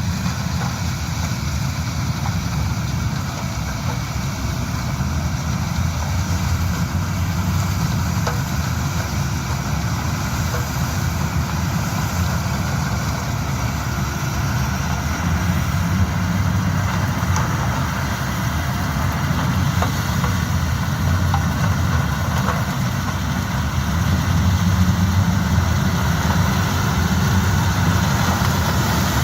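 Yanmar HS2000 sugarcane harvester's diesel engine running steadily, with a low hum and a noisy wash above it that grows a little louder near the end.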